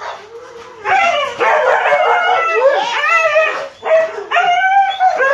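Several dogs whining and yelping in excitement as they crowd around a person and jump up at him, their high-pitched calls overlapping almost without a break.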